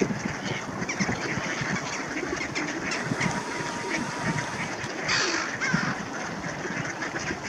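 A large flock of mute swans and mallard ducks calling together: many overlapping quacks and honking calls, with a brief rush of noise about five seconds in.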